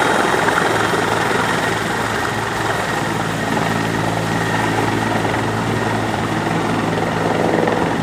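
Helicopter rotor and turbine engine running steadily as the helicopter comes in over a platform's helideck to land.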